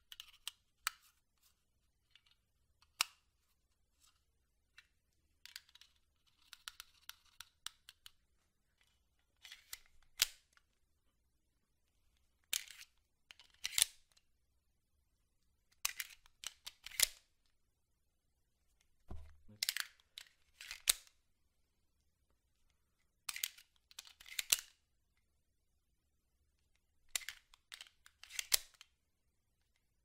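Handling noise of a Springfield Armory 1911 Lightweight Operator pistol and two spare stainless magazines loaded with snap caps, during tactical reloads. Groups of sharp metallic clicks, rattles and short scrapes come every few seconds, with quiet pauses between them, as a magazine is held, swapped and seated into the grip.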